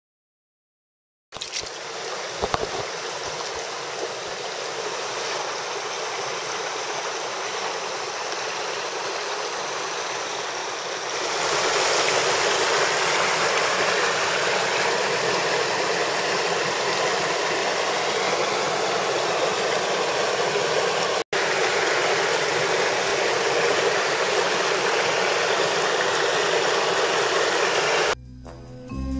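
Stream water rushing steadily over rocks, starting about a second in and growing louder about eleven seconds in.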